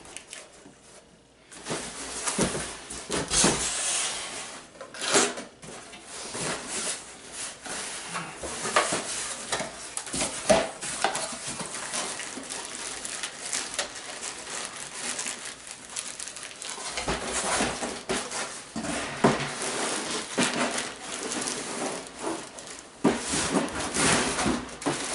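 A cardboard shipping box being opened and unpacked by hand, starting about a second and a half in: flaps and cardboard rustling and scraping and plastic wrap crinkling, with knocks and small clinks as the plastic-wrapped snare drum inside is handled.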